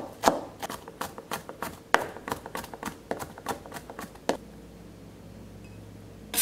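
Chef's knife mincing garlic on a plastic cutting board: quick light chopping taps, about four or five a second, that stop about four seconds in. A faint steady low hum follows.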